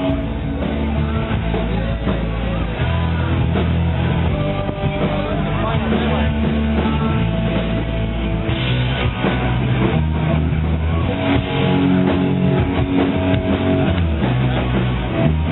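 Rock music with guitar and a bass line that moves from note to note, with faint talk underneath.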